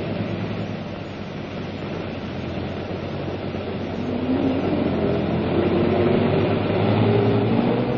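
Motor vehicle engines running in a steady low rumble as vehicles move along, growing louder in the second half.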